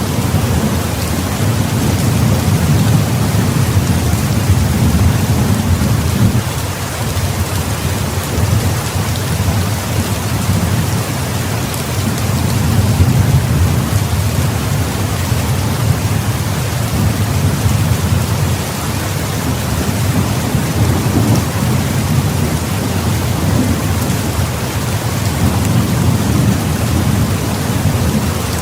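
Heavy rain falling steadily, with low rolling thunder that swells and eases several times.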